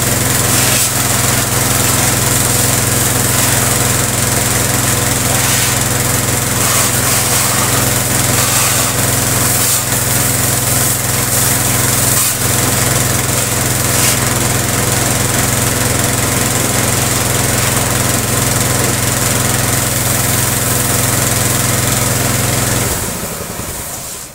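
Sanchin high-pressure washer machine running at about 40 bar, a steady motor hum under the hiss of the water jet hitting a scooter's wheel and underbody. It shuts off about a second before the end.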